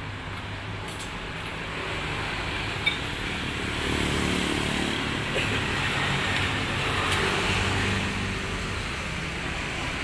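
Street traffic: vehicle engines and tyres going past, swelling from about four seconds in and easing off near eight seconds, with one short sharp click about three seconds in.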